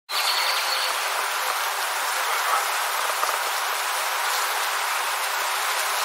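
Steady, even buzzing of many bees, with a short high bird note right at the start.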